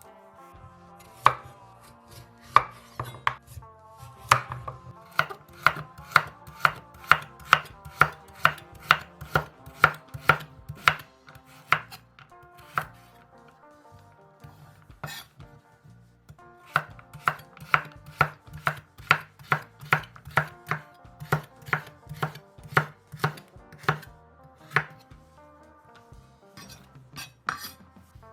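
Knife chopping food on a cutting board in a steady run of sharp strokes, about two a second, with a pause of a few seconds in the middle. Soft background music runs underneath.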